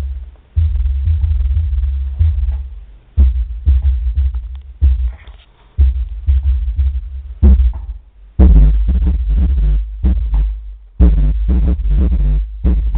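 Infinity Reference 1020 subwoofer driven by a Pioneer SA-606 amplifier, playing a hip-hop instrumental loudly: deep bass notes that start and stop with short gaps, over a beat of sharp clicks.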